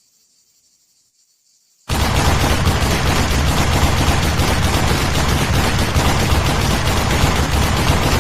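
PKM general-purpose machine gun (7.62×54mmR) firing a long, unbroken burst of automatic fire that starts suddenly about two seconds in, after near silence.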